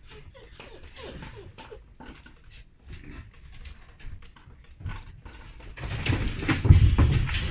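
Samoyed puppy making short whimpers and yips among many small clicks and taps. About six seconds in, a much louder rustling clatter begins.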